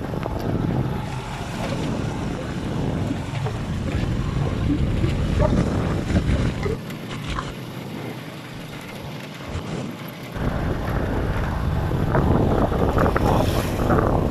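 Wind buffeting the microphone and the running noise of a moving vehicle on a concrete road, a dense low rumble. The rumble drops away for about three seconds midway, then returns.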